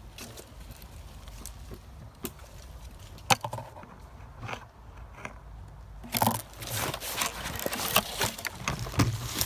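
Footsteps crunching through dry brush and twigs, with scattered snaps. A single sharp snap comes a little past three seconds in, and the crunching gets denser and louder from about six seconds in.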